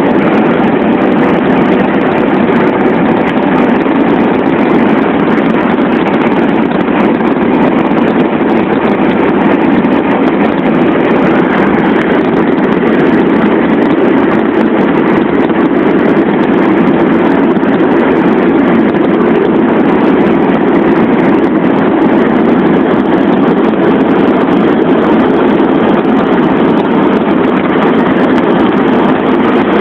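Loud, steady road noise inside a car cruising at about 90 km/h: engine, tyres and wind blending into one even noise.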